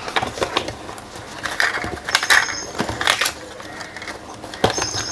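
Handling noise as accessories are taken out of a phone box: packaging crinkling and rustling, with scattered light clicks and knocks and two brief high clinks.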